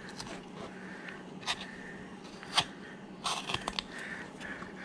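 Hand carving gouge cutting into hard wood: a few short, sharp crunching cuts as chips break away, one about a second and a half in, another a little later, then a quick run of small cuts past the middle.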